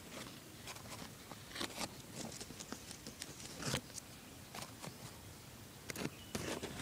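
Leaves of a hardy kiwi vine rustling and brushing against the recording device as it moves through the foliage: faint, scattered soft crackles with a handful of louder brushes.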